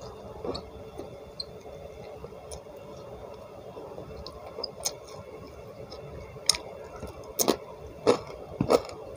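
Eating sounds: a person chewing by mouth with small, sharp wet clicks and smacks over a faint steady hiss. The clicks grow louder and come more often after about six seconds.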